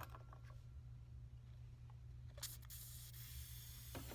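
A gas torch is lit with a sharp click about two and a half seconds in, then hisses steadily as it starts heating a wire mold.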